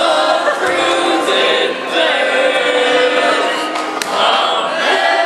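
Music with a choir singing, running steadily throughout.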